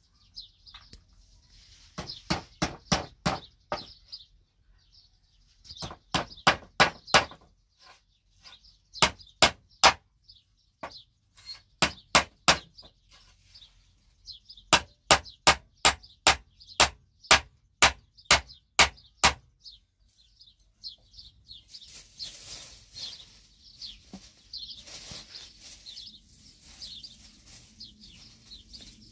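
Hammer driving nails into old wooden planks: five bursts of quick, sharp strikes with pauses between, the longest about a dozen strikes in a row, stopping about two-thirds of the way through. Birds chirp in the background, most clearly after the hammering stops.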